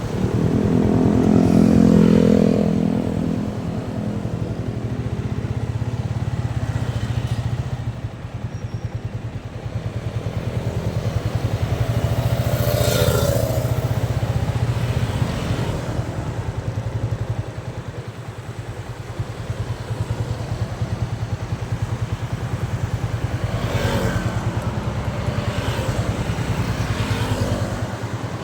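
Yamaha Vixion's single-cylinder four-stroke engine running while riding, the revs rising and falling in the first few seconds. Two brief rushing sounds pass, about halfway through and near the end.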